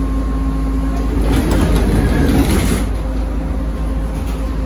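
Trolleybus running, heard from inside the cabin of a ZiU-682V: a steady low hum with faint steady tones, and a louder rushing noise from about a second in that lasts roughly two seconds.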